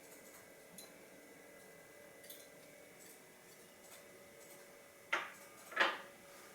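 Small tools and hard-drive parts being handled: a few faint ticks, then two short, louder clacks about five and six seconds in.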